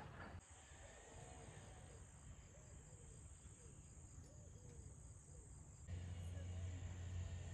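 Faint, steady high-pitched chirring of crickets, with a low rumble coming in near the end.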